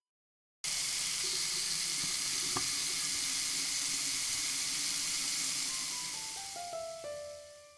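A frying pan sizzling with a steady hiss at the sink, the hiss fading away over the last two seconds. About six seconds in, a slow descending run of plucked ukulele notes comes in.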